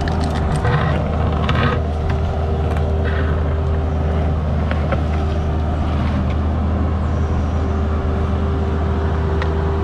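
Mini excavator's diesel engine running steadily with a constant hydraulic whine, and a few light clanks of the machine working.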